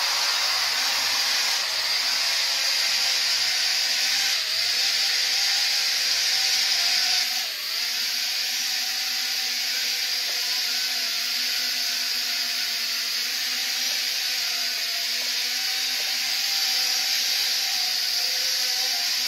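Small toy quadcopter drone in flight: its four little electric motors and propellers buzzing steadily with a high whine. The whine shifts slightly in pitch a few times as the drone is steered.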